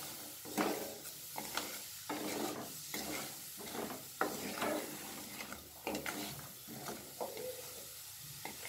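Wooden spatula stirring lumps of jaggery melting in a little water in a nonstick kadai: repeated scrapes and knocks against the pan over a steady sizzle, thinning out near the end.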